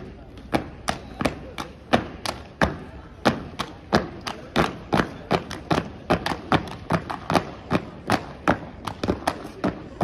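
Unarmed exhibition drill team's sharp stomps and slaps, about three or four a second in an uneven, syncopated rhythm.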